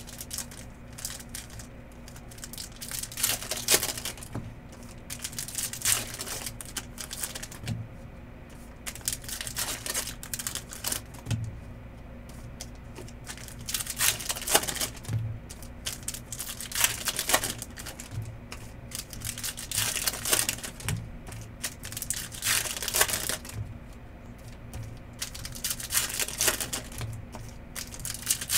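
Trading-card pack wrappers crinkling and tearing open while cards are handled, in irregular crackly bursts every second or two, over a steady low hum.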